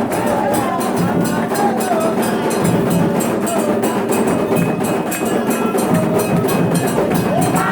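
Candomblé drumming and singing: atabaque drums led by the rum, with a struck percussion beat keeping a fast, steady rhythm and voices singing a melody over it.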